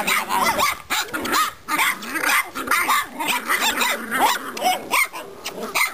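Several boxer puppies yipping and whining as they play, a rapid string of short high calls overlapping one another.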